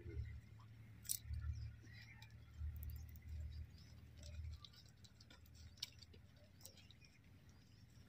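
Faint, scattered clicks and scrapes from a sheep's hoof being handled and trimmed with a small blade, the sharpest click about a second in, over a low rumble during the first half.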